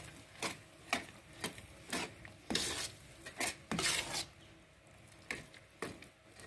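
A spoon stirring thick semolina, cream and sugar in a metal pot, knocking and scraping against the pot about twice a second. The strokes ease off for a moment in the middle.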